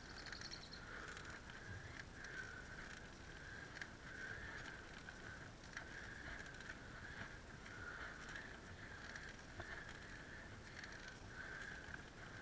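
Bicycle being ridden, heard from the handlebars: a faint whirr that swells and fades in an even rhythm, a little faster than once a second, with scattered light clicks and rattles.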